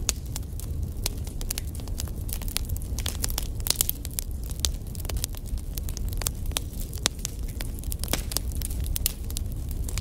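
Wood fire burning in a fireplace: a steady low rumble with many sharp crackles and pops from the burning logs, a few of them louder a little before halfway and again after two-thirds of the way.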